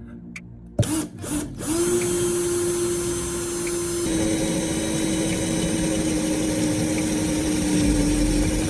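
Power drill started with a couple of short trigger blips, then running steadily; around four seconds in its pitch drops a little and it grows noisier, as when the bit comes under load.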